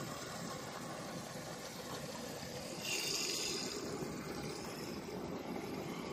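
Water from a garden hose running into a 30-gallon water bladder as it fills: a steady, even rush, with a louder hiss for about a second near the middle.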